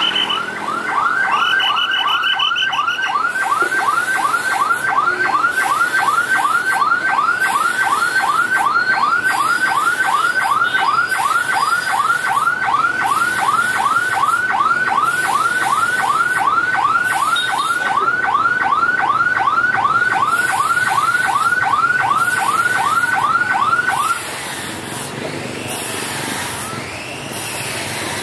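Railway level-crossing warning alarm: a loud electronic whoop rising in pitch, repeating about two and a half times a second, with a steady high beep over it for the first few seconds. It cuts off suddenly near the end, leaving street traffic and motorbikes.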